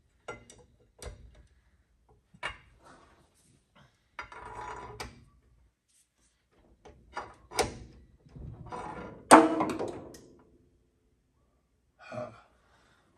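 Valve spring compressor and valve springs working in a Ford flathead V8 block: irregular metal clicks and knocks as springs are compressed and keepers are jammed in, with one loud clank about nine seconds in.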